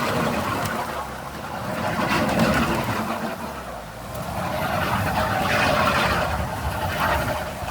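Off-road vehicle engine running and revving in surges, swelling and easing about three times, with a rushing, noisy hiss that fits water churning around the vehicle.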